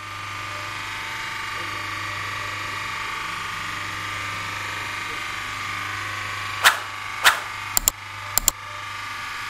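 Refrigeration plant machinery running steadily: a Bitzer semi-hermetic compressor and an electric water-pump motor giving an even mechanical hum. A few sharp clicks come close together near the end.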